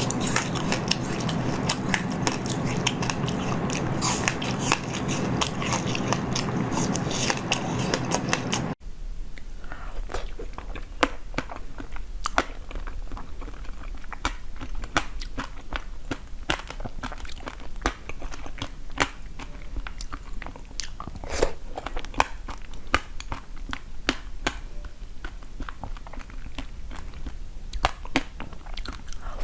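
Close-miked mouth sounds of someone biting and chewing food, with many sharp crunches and clicks. About nine seconds in the sound breaks off abruptly and a sparser run of crunchy bites follows.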